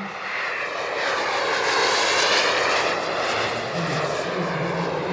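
Turbine engine of a large RC model F-104 Starfighter jet flying past: a jet roar with a faint high whine that swells to its loudest about two seconds in, then eases a little as it moves away.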